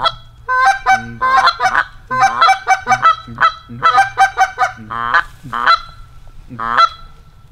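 Canada goose honking: a loud, quick series of short honks and clucks, ending with a longer honk that rises in pitch.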